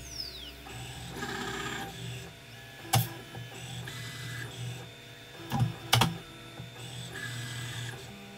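CNC router running a tool-change program: the VFD spindle's high whine falls in pitch and dies away in the first half-second, then the stepper motors whine through short axis moves. Sharp clacks sound once about three seconds in and twice around six seconds in.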